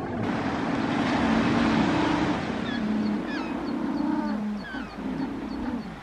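African penguins braying: long, drawn-out low calls that break near the end into a quick pulsing series of about three a second. A few short high chirps and a steady rushing hiss lie underneath.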